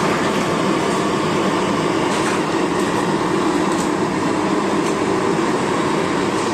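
Steady, loud rushing kitchen noise with a few faint clicks: the even din of a working restaurant kitchen, such as an extractor fan and cooking.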